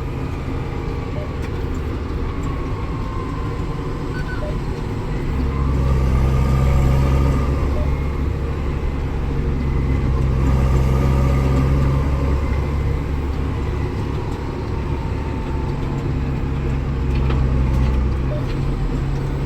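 Tractor engine droning steadily, heard from inside the cab while driving along a road. The low engine note gets heavier and louder about five seconds in and eases back near the end.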